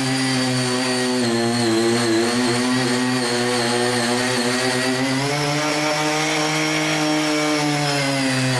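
Small petrol engine of a CHING YEE CY50 mini cultivator running at high speed while its rotary mixing blades churn sand and cement mix. The engine note is steady, sagging a little in pitch and recovering as the load changes.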